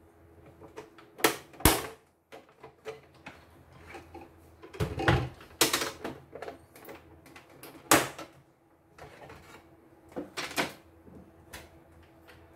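Sharp clicks and knocks of an embroidery machine's plastic housing and parts being handled and worked with a screwdriver while it is taken apart, several loud knocks at irregular intervals.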